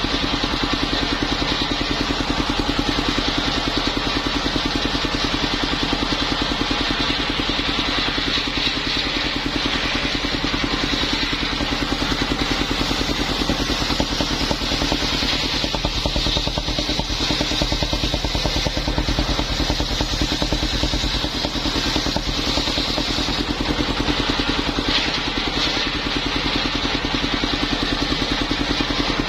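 The engine of a mobile circular sawmill running steadily at a constant speed, with no let-up.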